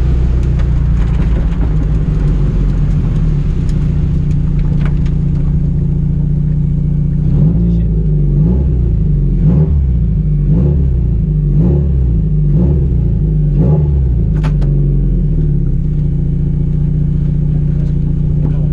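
Rally car engine running hard, heard from inside the car. Between about 7 and 14 seconds in, the revs rise and fall about once a second, with a few sharp knocks through the run.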